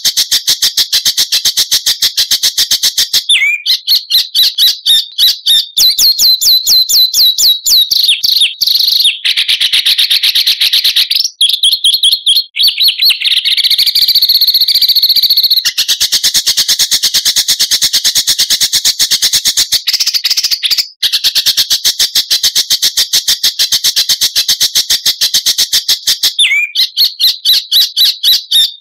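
Small songbird's rapid-fire song, recorded as a masteran tutor track: dense trills of very fast repeated high notes, broken by a few short pauses, with a different, steadier phrase partway through. The song stops abruptly at the end.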